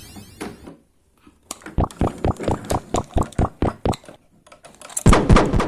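A quick run of hard clicks and taps, about four to five a second, then a louder clatter near the end.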